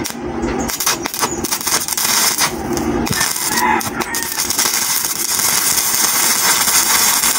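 Stick (SMAW) welding arc from a 1/8-inch E6011 electrode laying a tack weld on steel plate: it sputters with sharp pops over the first few seconds, then crackles steadily.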